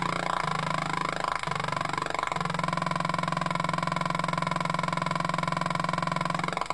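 Atari Punk Console, a homemade 555-timer square-wave synth circuit, buzzing with a low, raspy electronic drone. As its knobs are turned, the tone sweeps and warbles several times in the first couple of seconds. It then holds one steady buzz, with another sweep near the end.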